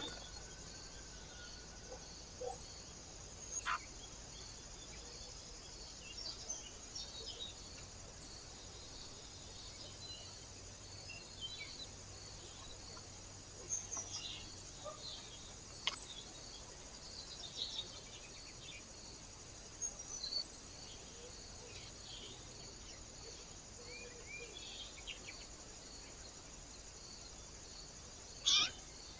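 Small birds chirping at a feeder: short, scattered chirps and calls over a steady high hiss, with a faint note repeating evenly throughout and one louder sharp call near the end.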